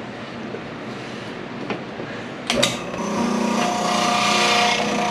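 Small electric food grinder (a 'maquinita') used to grind peeled yautía: after a sharp knock about two and a half seconds in, its motor starts and runs steadily with a whine.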